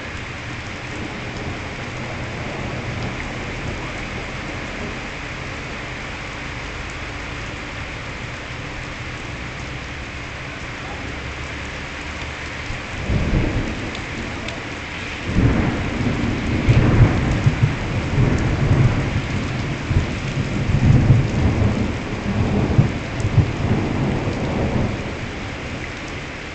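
Steady rain with thunder: a short rumble about halfway through, then a longer rolling peal of about ten seconds that dies away near the end.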